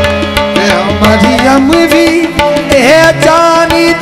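Qawwali music: harmonium and tabla playing, with a voice holding notes that slide up and down in pitch.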